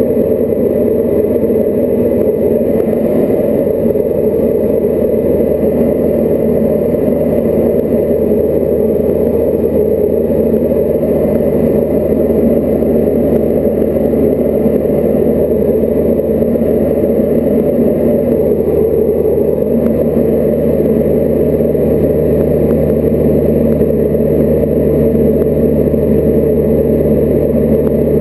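Diamond DA40's piston engine and propeller droning steadily in flight, heard inside the cockpit, with a few steady low hum tones beneath the drone.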